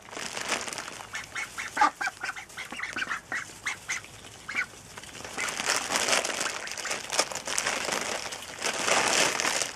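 Young white ducks give a quick run of short quacks for a few seconds while pecking at kale held out by hand. Then a steady crackling rustle of straw and leaves takes over as they crowd in and feed.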